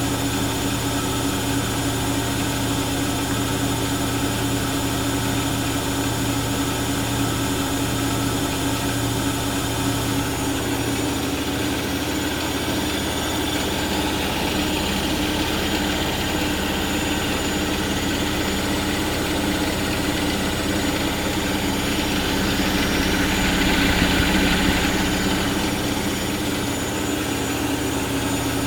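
Bosch WFK2801 washing machine running an intermittent spin before the softener rinse: motor and drum giving a steady hum, with a brief swell about four-fifths of the way through.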